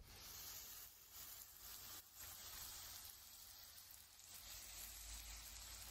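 Faint sizzling of chopped onions and then vermicelli frying in a pan.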